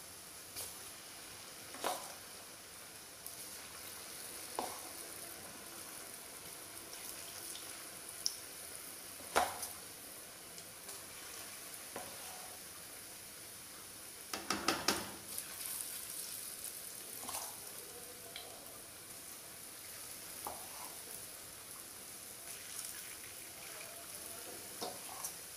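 Urad dal pakoras deep-frying in hot desi ghee in a kadhai: a steady sizzle, with a few short sharp pops or knocks scattered through and a quick cluster of them a little past halfway.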